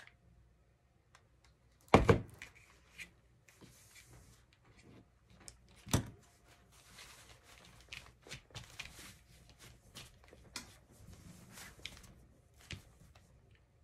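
A hard double thump on the tabletop about two seconds in, then a single knock around six seconds in as the hot glue gun is set down on the table. After that come soft rustling and light taps of hands pressing glued fabric flat onto a board.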